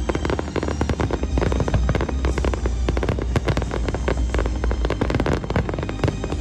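Fireworks display: a dense, unbroken barrage of aerial shells bursting, many bangs and crackles in quick succession.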